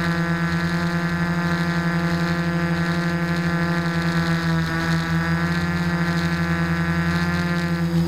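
Quadcopter's electric motors and propellers humming steadily in flight, picked up by the onboard camera: a loud, even buzzing tone with many overtones that wavers only slightly in pitch.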